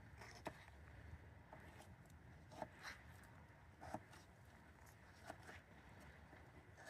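Faint, irregular knife taps on a cutting board while scotch bonnet chillies are sliced, a few light clicks spread over near silence.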